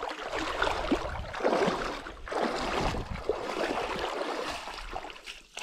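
Water splashing and sloshing in uneven surges as a big carp is brought in at the water's edge.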